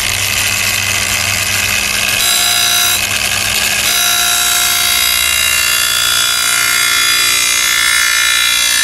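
Angle grinder with a 1500-grit polishing pad running steadily at speed, a continuous motor whine as the pad is worked along a cut tile edge to bevel it into a factory-style edge. Its tone shifts about two seconds in and again about four seconds in.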